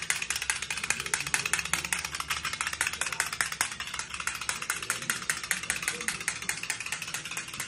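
Fast, even clicking and rattling, about ten clicks a second, from a small green toy and a puppy scrambling after it across a polished stone floor.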